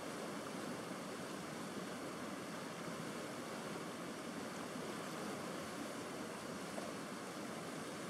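River rapids: white water rushing and churning over rocks, a steady even roar of water.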